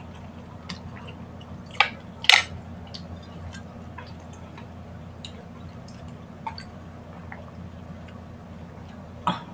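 Water being drunk from glass mugs: faint swallows and small wet mouth sounds over a steady low hum. Two sharp clinks about two seconds in, and a knock just before the end.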